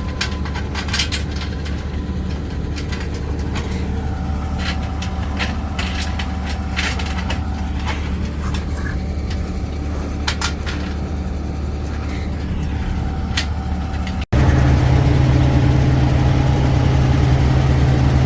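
Truck engine idling with a steady low hum, while scattered clanks and knocks come from work on the wheel during a roadside truck tire change. About fourteen seconds in, the sound cuts briefly, then the engine hum returns louder and steady.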